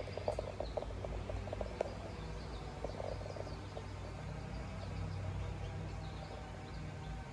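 Outdoor ambience: an animal's low calls in quick pulsed clusters, mostly in the first half, over a steady low hum, with faint high bird chirps.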